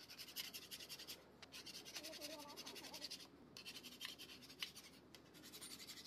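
Flat metal hand tool scraping quickly over a combine harvester clutch disc, a dry rasping in several runs of rapid strokes with short pauses between them.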